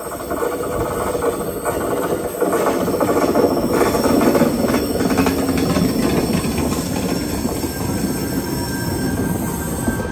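Tangara double-deck electric train running along a tightly curved platform, its wheels squealing on the curve over the rumble of the wheels on the rails. It grows louder over the first few seconds as the train comes alongside, with the thin high squeal clearest in the middle of the pass.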